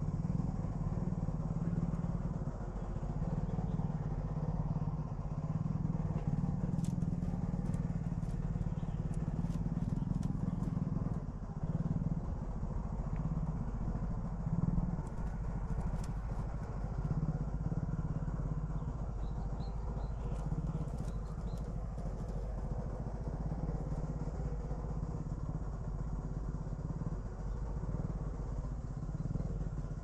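A steady low motor-like rumble that swells and eases, with scattered faint clicks.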